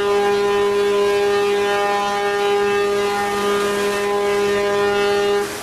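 A boat's horn sounding one long, steady blast that cuts off near the end, with a fainter horn of another pitch carrying on after it.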